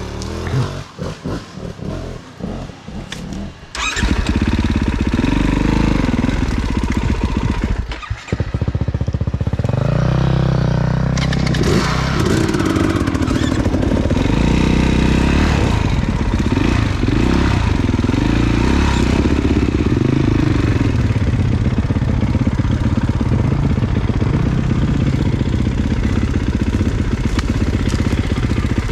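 Four-stroke dirt bike engine, choppy and on-off for the first few seconds, then revving hard with its pitch rising and falling; it dips briefly about eight seconds in.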